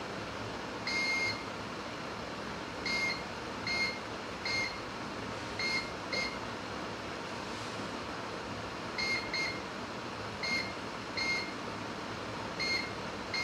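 Digital multimeter in continuity (buzzer) mode giving about a dozen short, high beeps at irregular intervals as its probes touch points around a phone's power IC, over a steady background hiss. This is a cold test for a short at the power IC, which finds none.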